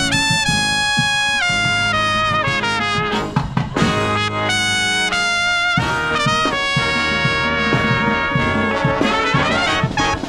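Marching band of trumpets, saxophones, trombones and sousaphones playing a brass tune, with long held chords and sharp drum hits under it.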